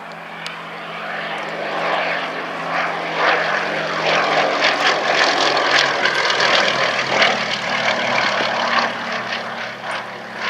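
Westland Lysander's Bristol Mercury nine-cylinder radial engine and propeller in a flypast, running at a high throttle setting. It grows louder over the first few seconds, stays loud, and eases off near the end as the aircraft passes.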